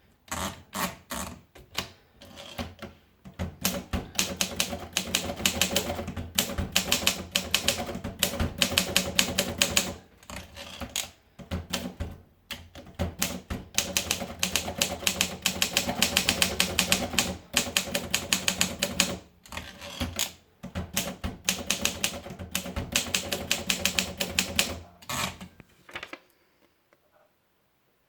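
Olympia Progress manual typewriter being typed on quickly: dense runs of key strikes broken by short pauses, stopping about two seconds before the end.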